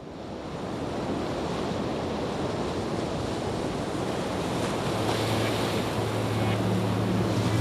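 A steady rushing noise, like surf or wind, fades in from silence. About two-thirds of the way through, a low steady drone joins it, building into intro music.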